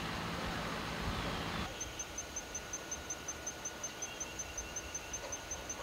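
A steady rushing noise that cuts off abruptly under two seconds in, leaving quiet outdoor ambience with an insect chirping in an even rhythm, about five high chirps a second, and a faint bird call.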